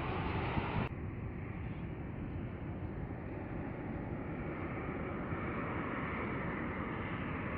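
Steady rushing noise of jet airliner engines, with no distinct tones. The higher hiss drops away suddenly about a second in, and a steady lower rumble carries on.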